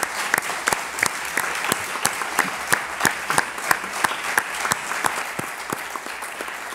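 Audience applauding: a dense patter of many hands clapping, easing off slightly toward the end.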